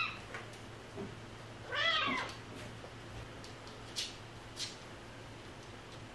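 A cat meowing: a short meow right at the start and a louder, longer one about two seconds in, rising then falling in pitch. Two short, sharp ticks follow about two seconds later.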